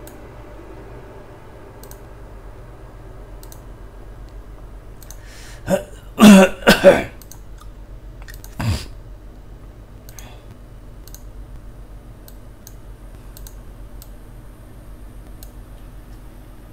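A person clears their throat loudly in a few quick bursts about six seconds in, with a shorter burst a couple of seconds later. Soft computer-mouse clicks come here and there over a steady low hum.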